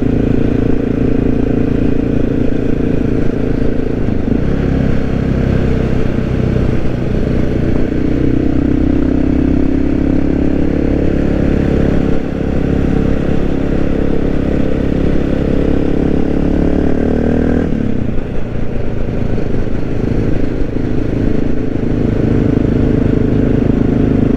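Honda XR650L's single-cylinder four-stroke engine running as the bike is ridden. Its pitch climbs slowly for about ten seconds in the middle, then drops suddenly before it settles back to steady running.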